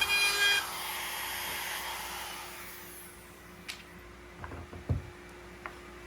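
A power tool's motor running with a steady whine cuts out about half a second in and winds down over the next couple of seconds. A few light knocks follow.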